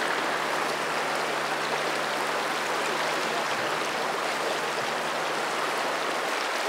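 Fast river current rushing and churning over rocks, a steady rushing noise with no letup.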